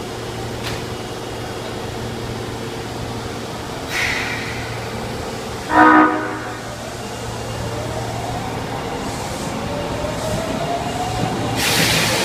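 Osaka Metro 22 series subway train sounding one short horn blast a little before the middle, the car's unusual, distinctive horn tone. Later its traction motors start a rising whine as it pulls away. There are hisses about 4 s in and near the end.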